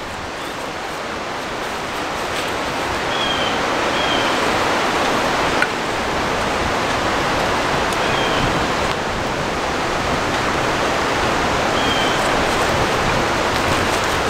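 Steady wind rushing through trees, with light creaking from the swaying trunks: short, faint high squeaks every few seconds.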